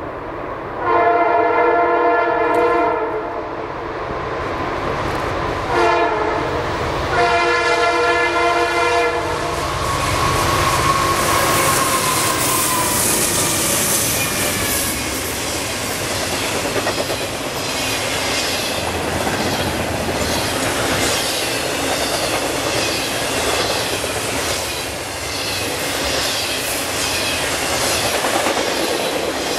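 Horn of a Norfolk Southern EMD SD60M diesel locomotive: a long blast, a short one, then another long one. The locomotive then passes and a freight train follows, its wheels clicking over the rail joints in a steady rhythm.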